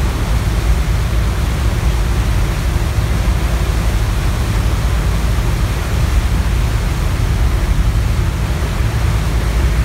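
Loud, steady rushing noise at a ferry's stern, heaviest in the low end: the churning propeller wake, the vessel's engines and wind on the microphone blended together.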